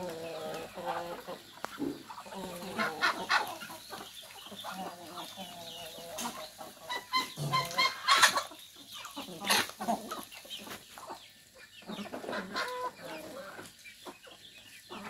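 Chickens clucking and calling in short, scattered notes as a flock of poultry feeds, with sharp clicks mixed in.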